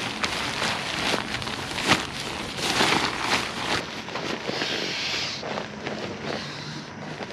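Crinkly rustling of thin nylon fabric as a pump sack and an inflatable sleeping pad are handled and pressed, with a short hiss about halfway through.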